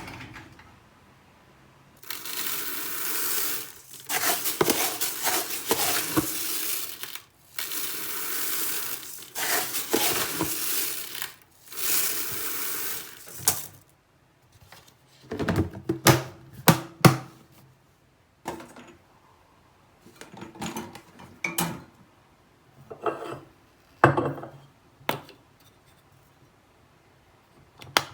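Uncooked rice grains being scooped from a storage container, pouring and rattling in four long hissing runs. Then the container's snap-lock lid is clicked shut with a few sharp clacks. Near the end come scattered knocks and clinks of seasoning bottles being handled.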